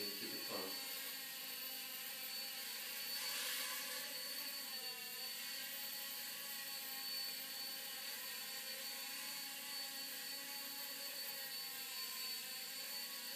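Small electric motor and rotors of a toy remote-control helicopter whirring steadily, its pitch dipping slightly and recovering about five seconds in.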